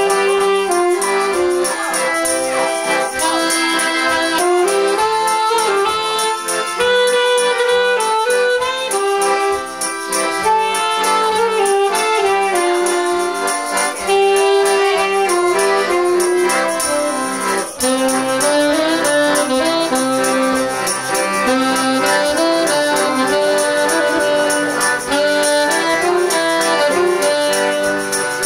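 A band playing a waltz, with a sustained melody carried over steady chords.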